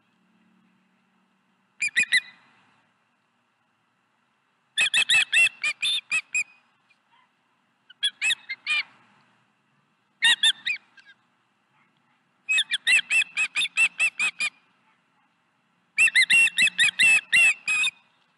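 Osprey calling: six bursts of rapid, high chirps, about six a second, the longest bursts running about two seconds.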